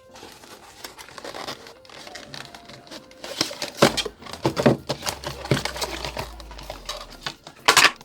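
Handling noise: crinkling and rustling with irregular knocks and scrapes, loudest about four to five seconds in and again near the end, with a low rumble underneath for a few seconds in the middle.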